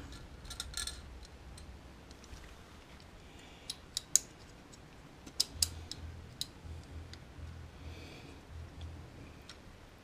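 Light, scattered clicks and ticks of the clutch cable end and its metal fittings being handled and seated at the clutch release lever, a sharp cluster about four seconds in and another about five and a half seconds in, over a faint low hum.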